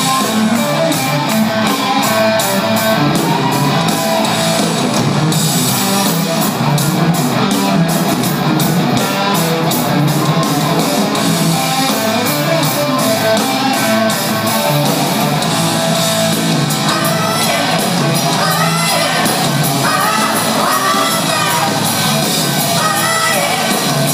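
Rock band playing live in a theatre, with electric guitars, drums and a woman singing, heard from the audience with the hall's reverberation. The music is loud and steady, with cymbal hits throughout and the vocal line standing out more in the second half.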